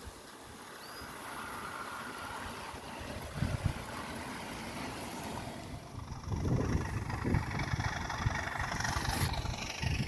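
Large-scale model trains rolling along garden-railway track, a steady mechanical rumble, with gusts of wind buffeting the microphone that grow stronger about halfway through.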